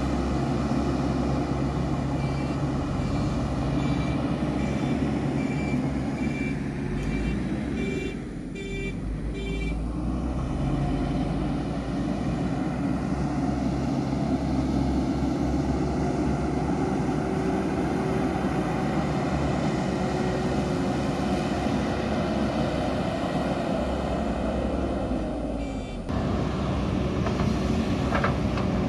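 JCB 3DX Super backhoe loader diesel engines running steadily under working load. From about two seconds in, a reversing alarm beeps about twice a second for several seconds. Near the end the sound changes abruptly to a closer machine.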